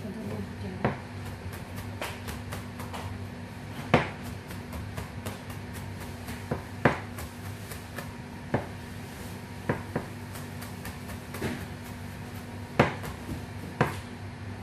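Large kitchen knife mincing garlic on a chopping board: irregular knocks of the blade against the board, a few much louder than the rest, with fainter ticks in between.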